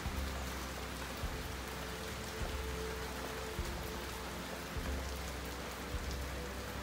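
Steady rain falling on a street, roofs and trees: an even hiss, with soft low thumps a little over a second apart.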